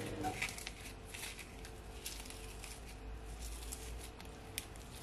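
Oreo biscuits being crushed by hand, with faint crunching and crackling as the crumbs fall into the cookie dough, and one sharper click near the end.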